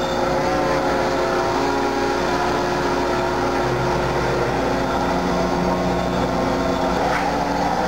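Steady machine-shop noise from a CNC mill and the machinery around it: a continuous hum with several steady whining tones, one of which steps to a new pitch about five seconds in.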